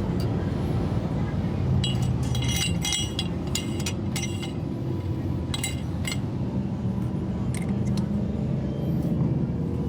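Metal tools and parts clinking against each other several times, with a short ringing note after the clearest strikes, about two to three seconds in and again near the middle. A steady low hum runs underneath.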